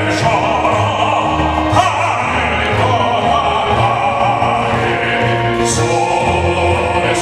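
Operatic-style voices singing a song over instrumental accompaniment, with a steady bass line that changes note every second or so.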